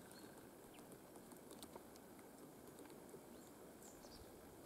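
Very faint woodland near-silence with a few scattered light taps from a woodpecker foraging on a birch branch, and a couple of brief high bird calls, one at the start and one near the end.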